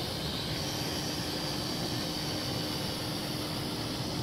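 Kai Deng K-60 X-Fighter toy quadcopter in flight: its small motors and propellers give a steady high whine with a faint low hum under a hiss.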